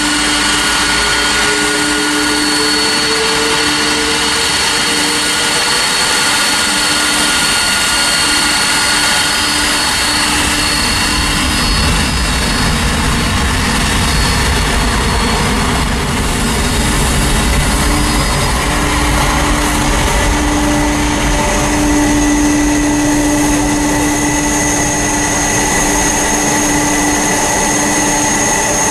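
Boeing 747-400's four jet engines running at taxi power: a steady whine over a rumble. The rumble grows heavier about halfway through, and the whine tones change pitch as the jumbo turns onto the runway.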